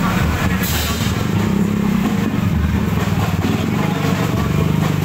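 Motor scooters running close by at a slow walking pace, their engines a steady low drone.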